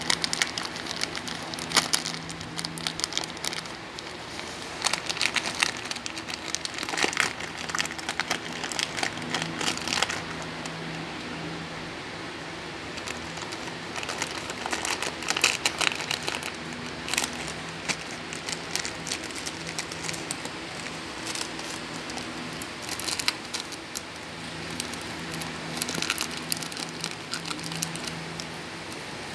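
Shih Tzu chewing and mouthing a plastic biscuit wrapper, the packet crinkling and crackling in irregular bursts, busiest in the first ten seconds and then in shorter spells. A steady low hum runs underneath.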